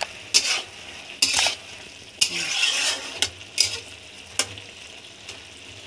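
A flat spatula scraping and knocking against a metal kadai while stirring a thick cabbage and potato curry, about five or six strokes, over a faint steady sizzle from the pan.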